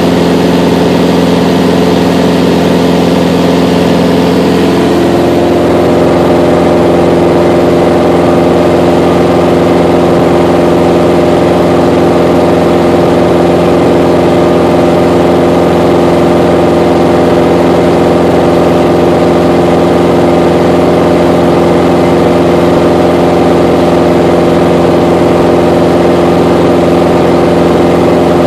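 Mooney M20J's four-cylinder Lycoming engine and propeller droning steadily in flight, heard from inside the cabin. About five seconds in, the pitch of the drone shifts a little lower, then holds steady.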